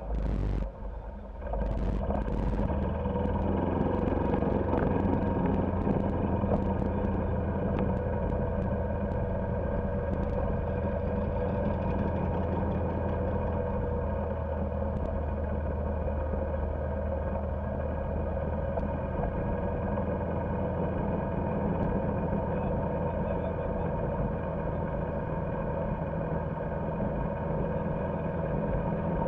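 Golf cart driving along a paved road: a steady drivetrain hum with tyre noise. The sound dips briefly about a second in, then picks up and runs steadily.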